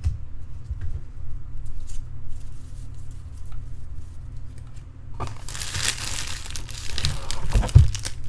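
Wrapper crinkling and tearing as a trading card pack or box wrap is handled, starting about five seconds in, with a low thump near the end over a steady low hum.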